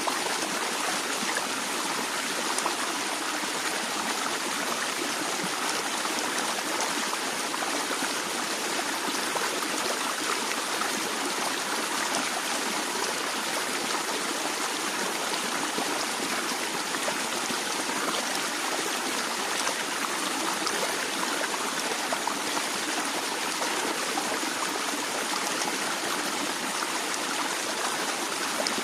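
Stream water flowing and splashing steadily, a continuous even rush with fine trickling detail.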